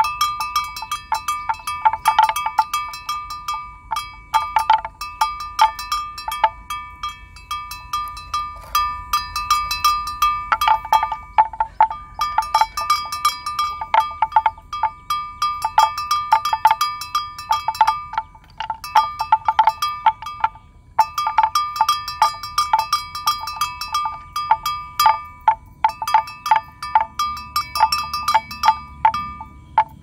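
Metal livestock bell clanking in irregular runs of quick strikes, with short lulls between the runs, as a bell worn by grazing animals does.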